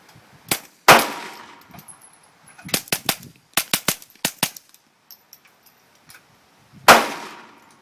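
Two loud gunshots from a suppressed firearm, about six seconds apart, each trailing off briefly. In between come two quick runs of quieter sharp cracks and clicks.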